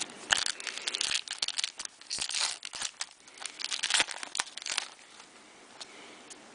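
A trading-card pack wrapper being torn open and crinkled by hand: a quick run of rustles and crinkles that dies down about five seconds in.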